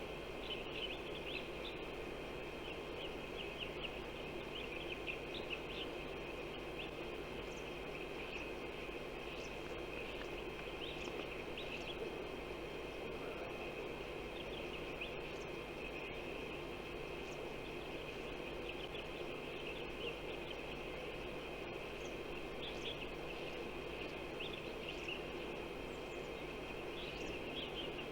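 Steady outdoor background hiss with scattered brief, high bird chirps coming in small clusters.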